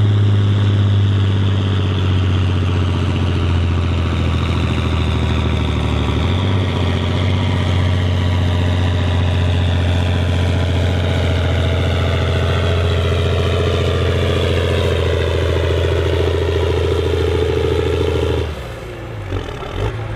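John Deere 4440's turbocharged six-cylinder diesel running hard under full load as the tractor pulls a weight sled, with a steady heavy drone. About eighteen seconds in it drops off suddenly as the throttle is let off at the end of the pull.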